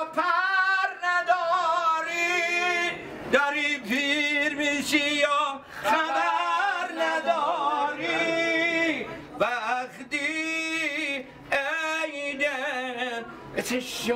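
A man singing solo and unaccompanied in Persian style: long held notes with rapid wavering ornaments, in phrases broken by short breaths every few seconds.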